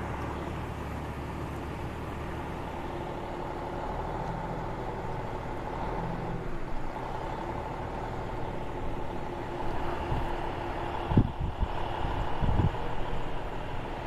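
Heavy truck engine running steadily, with a few low thumps near the end.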